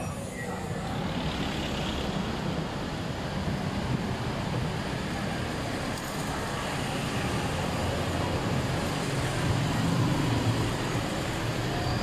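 Street traffic noise: a continuous hum of passing motor vehicles, swelling a little as something passes close, about three-quarters of the way through.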